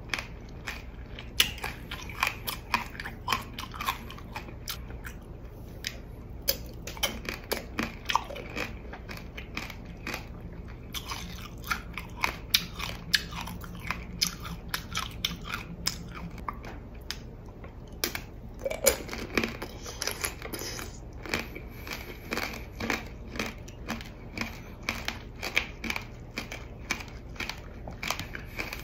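Close-miked biting and chewing of tanghulu, candied tomatoes and grapes. The hard, glassy sugar shell cracks and crunches between the teeth in a rapid run of sharp crackles over the juicy fruit.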